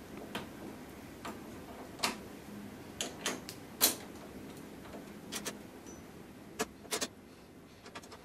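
Small ratchet spanner clicking as a bolt on a lawnmower handle is tightened, in scattered sharp clicks about half a second to a second apart.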